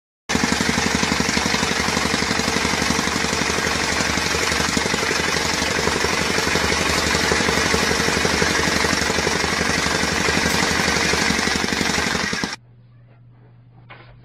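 Handheld electric demolition hammer (jackhammer) running with rapid, steady hammering. It cuts off abruptly about twelve seconds in, leaving a faint low hum.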